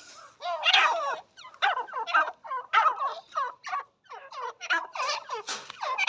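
Teetar (francolin) calling: rapid runs of short, harsh notes that fall in pitch, several to the second, with brief pauses between the runs.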